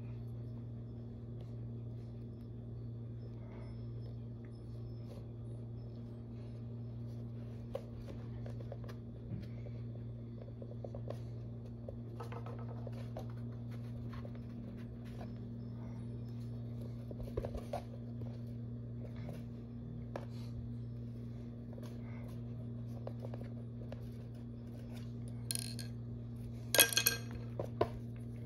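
Sculpting tools tapping and clinking lightly as they work the clay and are handled, with a few sharper clinks near the end, over a steady low electrical hum.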